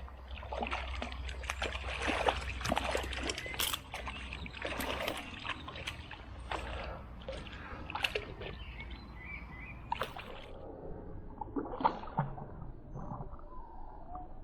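Water splashing and sloshing irregularly as a hooked fish, likely a perch, is played at the surface of the canal; the splashes grow sparser in the last few seconds.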